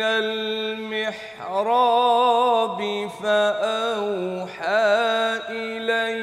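A man chanting the Quran in melodic tajweed, holding long notes that bend and waver in pitch, with short breaks between phrases. Near the end he sings the word "fa-awha".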